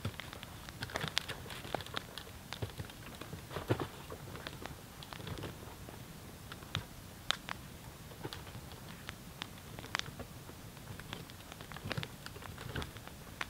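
Campfire of dry hardwood crackling, with irregular sharp pops and snaps from the burning wood over a low steady background.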